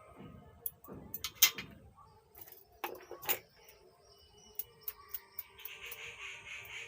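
Sharp clicks and clinks of small metal tools being handled on an amplifier circuit board, in irregular groups. About two thirds of the way in, lighter ticks come quicker and a steady pulsing sound with a beat comes in.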